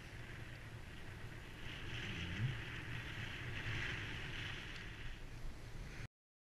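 Wind buffeting an action camera's microphone: a steady rushing hiss with low rumble and one brief low thump about two and a half seconds in, cutting off suddenly near the end.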